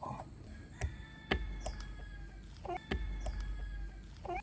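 Domestic fowl clucking in short calls. Two sharp knocks each ring on for about a second.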